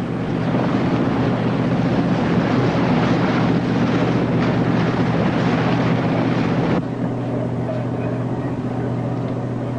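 Naval patrol boat running at speed through the sea: a loud rush of bow spray and water with wind on the microphone, over a steady low engine drone. About seven seconds in, the rush of water cuts away and only the engine drone remains.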